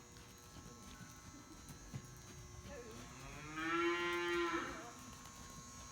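A cow mooing once: a single drawn-out low call lasting about a second and a half, starting a little past halfway through.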